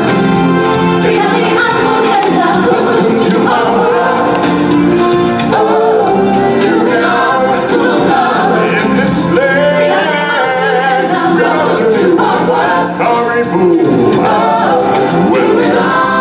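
Live stage singing over amplified backing music: a singer performs into a handheld microphone, with the melody held loud and steady throughout.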